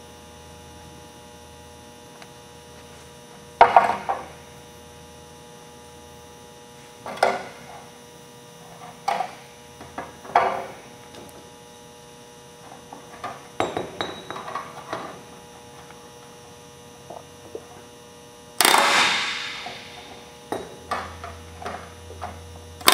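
Pneumatic rivet gun with a flush set driving flush rivets into a sheet-metal patch, in several short bursts with pauses between them and a longer burst near the end. A steady electrical hum runs underneath.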